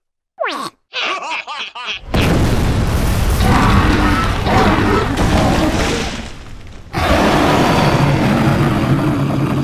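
Brief squeaky cartoon-voice chatter and laughter from the larvae, then a loud, rough rumbling cartoon sound effect in two long swells as the carnivorous plants rise.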